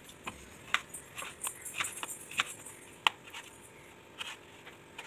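Kitchen knife slicing peeled raw potato on a plastic cutting board: a string of light, irregular knocks as the blade cuts through and meets the board, the sharpest about three seconds in.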